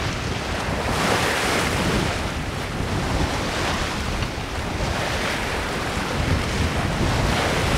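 Open-ocean waves washing against a sailing yacht under way, rising and falling, with wind buffeting the microphone.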